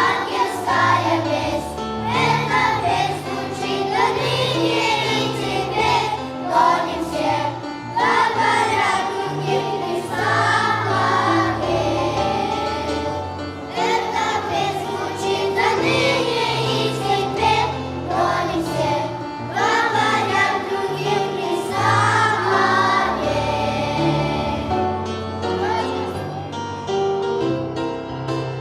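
Junior children's choir singing a Christmas song over instrumental accompaniment. The voices stop near the end while the accompaniment plays on.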